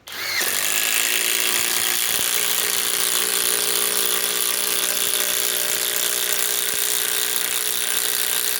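Flex FX1331 24-volt compact impact driver hammering steadily as it drives a 5-inch ledger lock structural screw into wood. It starts up suddenly and holds a steady pitch after the first half second.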